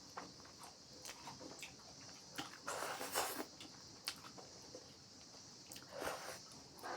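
Someone eating: scattered quiet clicks and short crunchy mouth noises, loudest about three seconds in and again near the end, over a faint steady hiss.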